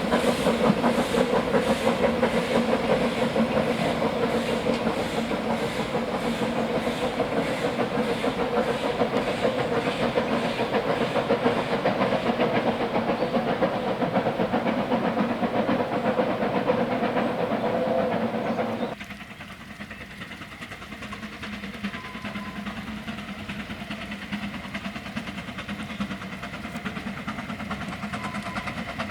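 Narrow-gauge Ffestiniog Railway steam train running, with a fast steady clicking from the wheels and a steam hiss. About two-thirds of the way through the sound drops suddenly to a much quieter steady rumble.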